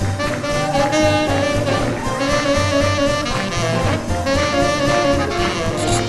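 Live small-group swing jazz: horns playing melody lines over a steady rhythm-section beat of bass and drums.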